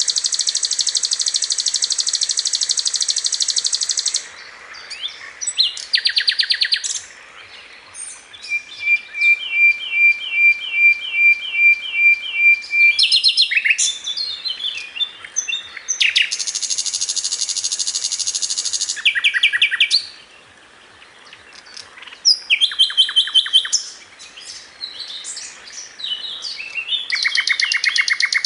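Songbird singing a varied, loud song: bursts of very fast trills alternating with a run of repeated whistled notes at about two a second, broken by short pauses.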